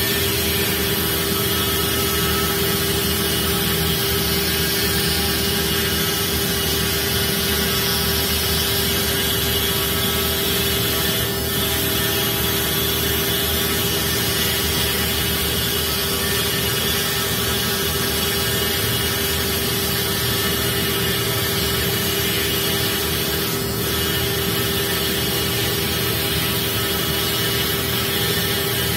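Comeva nesting CNC router milling a circular groove into a wood-based board: a steady, even machine noise with one constant pitched tone running through it.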